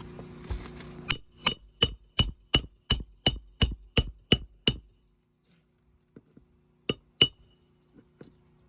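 Hammer nailing down an asphalt roof shingle: a quick, even run of eleven sharp ringing strikes, about three a second, then two more strikes after a pause.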